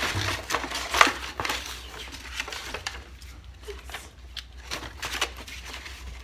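Crackling and crunching from a dog chew stick being handled and mouthed, with the sharpest crack about a second in and lighter crackles after that.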